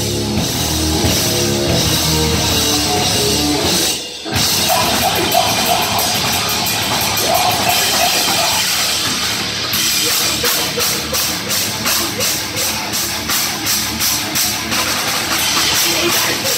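Live heavy metal band playing loud, with distorted electric guitar, bass guitar and drum kit, and a brief break about four seconds in. In the second half the drums keep a steady beat of about two to three hits a second.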